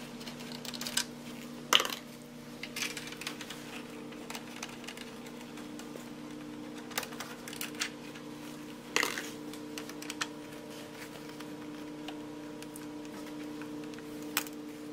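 Scattered light clicks and taps of a hand Torx screwdriver, small screws and plastic body panels being handled on a BMW R1250RT, with a louder knock about two seconds in and another about nine seconds in, over a steady low hum.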